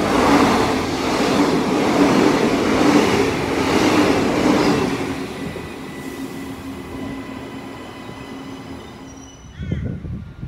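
Queensland Rail electric multiple-unit train running past the platform, its wheels and running gear loud with a steady hum, fading over several seconds as it pulls away. Near the end a low rumble and a bird calling.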